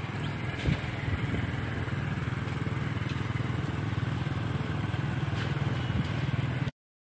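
Vehicle engine running steadily on the road, with road noise and a single knock about a second in; the sound cuts off suddenly near the end.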